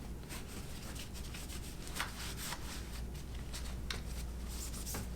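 Cloth wiping over rifle parts, a soft rubbing with several light clicks and taps of metal parts being handled.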